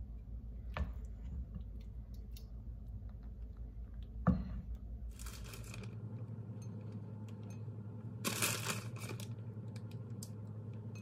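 A ladle knocking against a metal pot twice, then the plastic bag of shredded cheese crinkling in two bursts as it is handled and opened, over a steady low hum.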